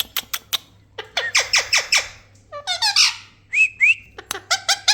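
Indian ringneck parakeet calling: a rapid series of sharp, shrill squawks, with two short rising whistles a little past halfway.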